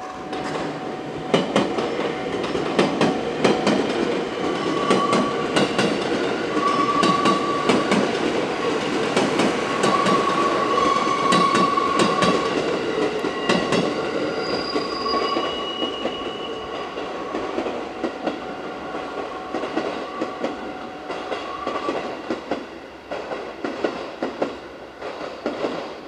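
JR West 221 series six-car electric train passing: wheels clatter over the rail joints in a run of sharp clicks, with short wheel squeals through the middle. The noise builds just after the start and dies away over the last several seconds.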